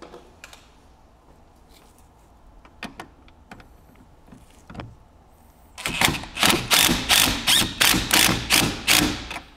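A few light clicks and knocks of handling, then about six seconds in a cordless impact driver rattles hard in pulses for about three and a half seconds, tightening a battery cable terminal nut.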